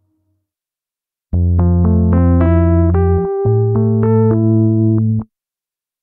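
reFX Nexus 'Warm Keys' synth preset, a soft keyboard sound, playing two held chords over a low bass note while the upper notes step through a short melody. It comes in about a second in and is cut off sharply after about four seconds.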